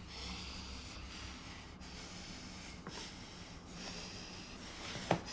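A distressed man breathing hard, about four long breaths in and out, with a short sharp click near the end.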